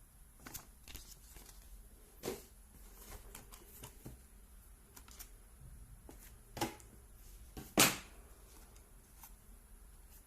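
Handling sounds from unpacking a toy RC car: scattered clicks and rustles of packaging and plastic parts, with a few louder knocks, the loudest about eight seconds in.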